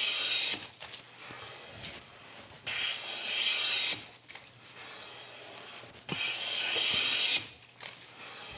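Caliastro No. 5 bench plane cutting along a softwood board in three hissing strokes with a high pitch, about a second each, with quieter returns between. The blade is set a little deeper on each pass, and its edge has started to break down, tearing the shaving.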